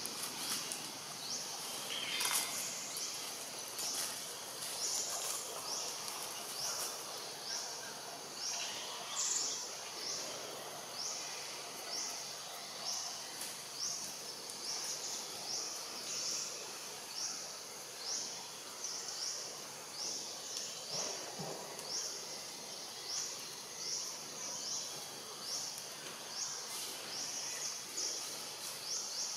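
Forest ambience: a short, high-pitched rising call repeats evenly about one and a half times a second over a steady high hiss.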